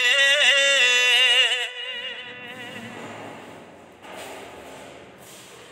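A song: a singer holds a wavering sung note over the music, which cuts off about a second and a half in. Then only a faint hiss remains, with a couple of soft rustles.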